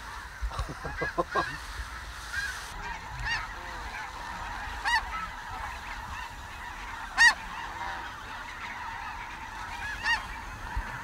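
A large flock of snow geese calling, with the steady overlapping clamor of many birds. Single louder honks stand out about five seconds in, again about seven seconds in (the loudest), and near the end.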